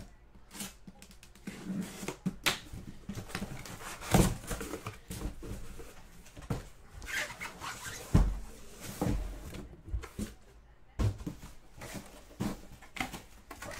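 Cardboard shipping box being opened and handled by hand: cardboard rustling and scraping with scattered knocks as a boxed helmet is lifted out, and two heavier thumps about four and eight seconds in.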